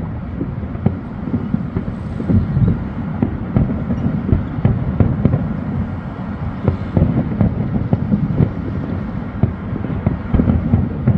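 Aerial fireworks bursting: a rapid, irregular run of bangs over a steady low rumble.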